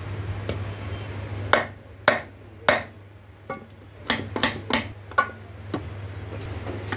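Sharp metallic clinks and knocks of steel gear shaft parts against a Toyota C-HR's aluminium gearbox case as they are worked loose by hand, about nine in a few seconds, a couple ringing briefly.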